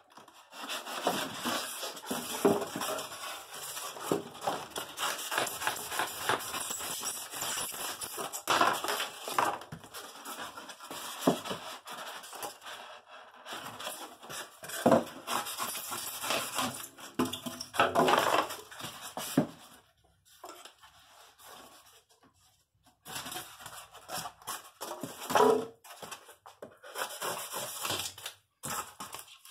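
Styrofoam packing pieces being pushed into and around a cardboard box: foam scraping and squeaking against cardboard, with rustling and light knocks, pausing briefly about two-thirds of the way through.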